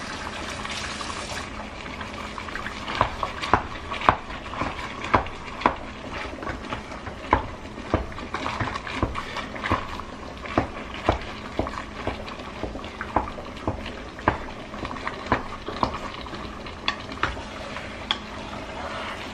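A utensil clinking and scraping against a pot as raw ground beef is chopped up in it: irregular sharp knocks, about one or two a second, over a steady background hiss. A tap running at the sink stops about a second and a half in.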